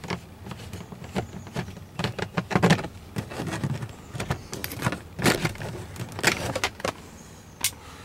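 A screwdriver turning out a screw from a Mercedes W123's lower dash trim panel, then the panel being worked loose by hand: an irregular string of clicks, scrapes and light knocks.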